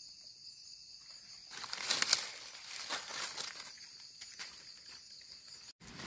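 Dry leaf litter rustling and crackling as gloved hands and a knife dig around a mushroom stem, loudest about two seconds in, with shorter bouts later. A faint steady high insect drone sounds behind it.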